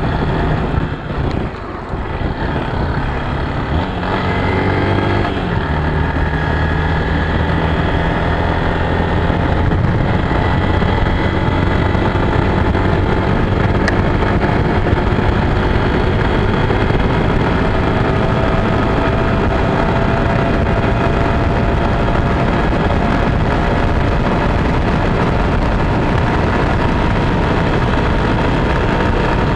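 Honda NXR Bros single-cylinder four-stroke motorcycle engine under way: the note drops briefly about a second in, rises through the revs a few seconds later, then settles into a steady cruise whose pitch climbs slowly as speed builds.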